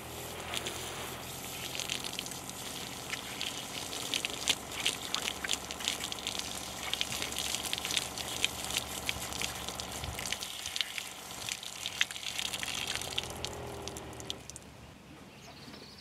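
Water spraying from a handheld shower head on a hose, splashing over a person's head and onto the ground, stopping about a second and a half before the end.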